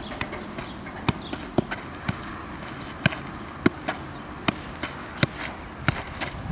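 A football being juggled with the feet: a dull thump each time the foot strikes the ball, about ten touches in a row, a little under two a second.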